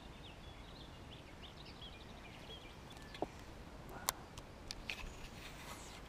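Faint, short chirps of small birds, then a few sharp clicks and light taps in the second half.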